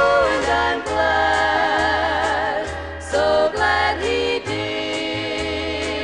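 Gospel music: voices holding long, wavering notes over a steady bass line.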